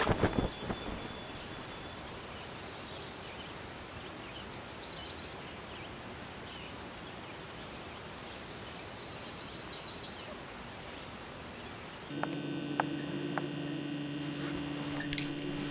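A water splash fading at the very start, then steady faint ambience with birds chirping in two short trills. About twelve seconds in, a low steady hum with a few faint clicks comes in.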